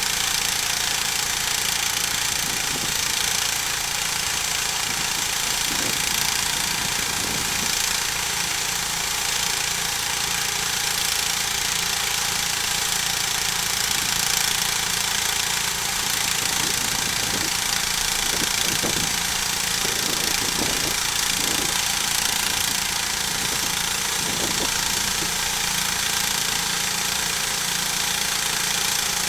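Engine-driven homemade sawmill running steadily at cutting speed, a loud, even machine noise with a strong hiss, as the saw cuts through a log.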